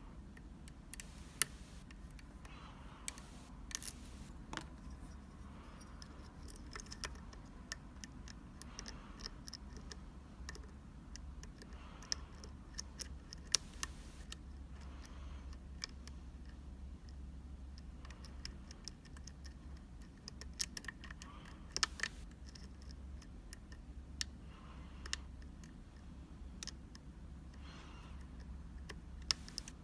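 Scattered, irregular small metal clicks and ticks of a pick and tension tool working the pins of a Sargent Keso mortise cylinder, over a low steady hum.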